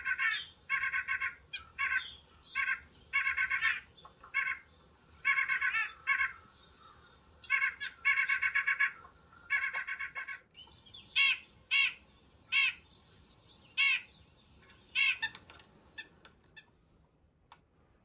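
White-breasted nuthatch calling. Short runs of quick repeated notes for the first ten seconds, then single notes about a second apart.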